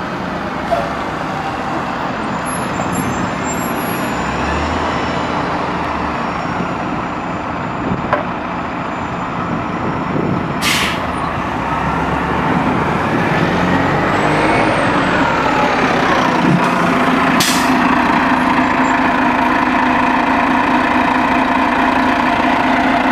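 2005 Orion VII transit bus's Detroit Diesel Series 50 four-cylinder diesel running as the bus pulls away, with a whine rising in pitch about halfway through. There are two short hisses of air, one about 11 s in and one about 17 s in. The engine settles into a steady idle near the end.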